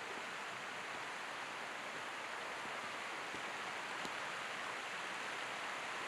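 Steady rushing of flowing water, an even hiss with no rhythm or pitch.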